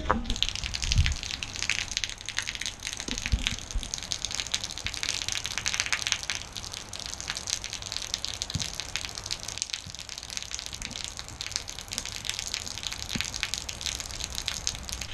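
Steady rain falling, a dense patter of many small drops, with a few low thumps in the first few seconds.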